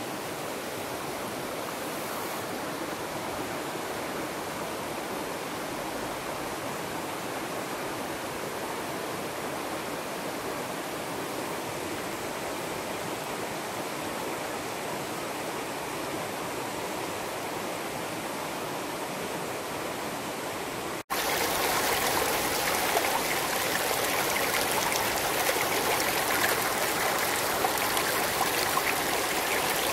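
Shallow stream flowing over stones, a steady water noise. About two-thirds of the way through it cuts abruptly to a louder, brighter babble of water running over rocks.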